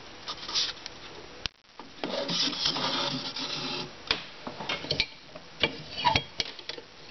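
A cardboard toilet-roll round, capped with a ping-pong ball, rubbing and scraping as it is pushed by hand into the metal pipe-fitting breech of a homemade air cannon. A few sharp clicks and knocks come from the breech fittings as they are handled and closed.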